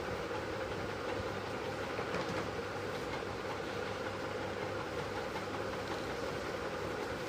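A steady machine hum with a constant rushing noise, unchanging throughout.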